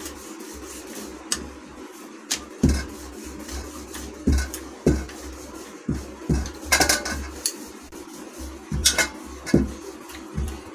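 Wooden rolling pin rolling out a thin round of dough on a countertop: a low rumble as the pin rolls, broken by a dozen or so irregular knocks and clicks as it is pressed, lifted and set back down.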